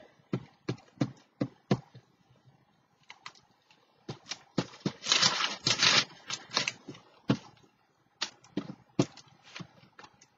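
Hands working a glued paper picture onto a journal page: irregular light taps and knocks on the table, with a paper rustle and rub about five seconds in.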